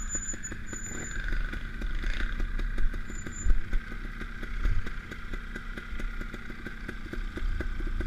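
Trials motorcycle engine running at low revs as the bike rolls over a bumpy dirt track, with rapid knocks and rattles from the bike and a few brief louder surges.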